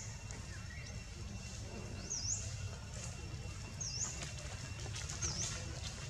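A small bird repeating a short, high whistled note that dips and rises, about every second and a half, over a steady low rumble.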